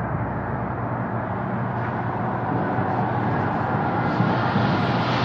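Dark ambient industrial music: a dense rumbling noise drone over a steady low hum, with no beat, swelling a little about halfway through.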